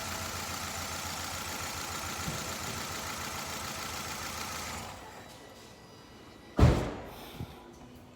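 Nissan Altima's 2.5 L four-cylinder engine idling with a misfire, with an uneven low pulsing. About five seconds in it dies away as the engine is shut off. A loud single thump follows a couple of seconds later, then a smaller knock.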